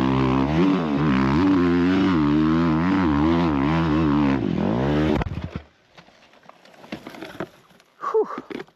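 Dirt bike engine revving up and down hard on a steep hill climb, then cutting out abruptly about five seconds in as the bike tips over and stalls. Faint clicks and scrapes follow.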